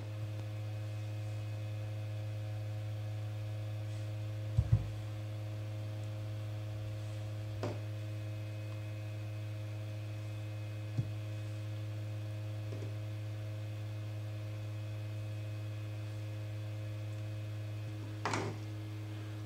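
Steady electrical mains hum, with a few light clicks over it, the loudest a quick double click about four and a half seconds in.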